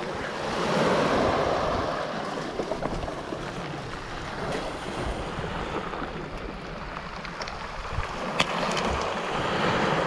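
Small waves breaking and washing up over a pebble beach, swelling louder about a second in and again near the end, with wind buffeting the microphone.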